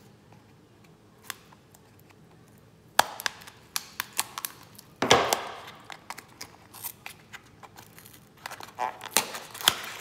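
Cardboard packaging and a taped kraft-paper packet being handled and opened. Sharp snaps and taps begin about three seconds in, with a burst of paper rustling about five seconds in and a few more snaps near the end.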